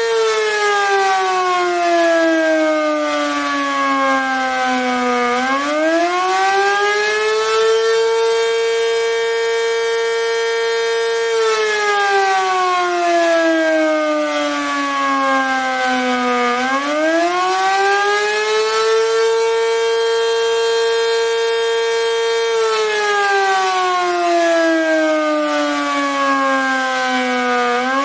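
ACA Banshee 115 outdoor warning siren sounding the attack signal: a slow rise-and-fall wail that holds its high pitch for several seconds, sinks over about five seconds, then climbs quickly back up, repeating about every eleven seconds.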